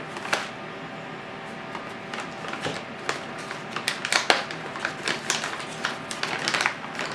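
Irregular light clicks and taps of a salt container and measuring spoon being handled as salt is measured into a bowl of dressing, coming thicker from about four seconds in.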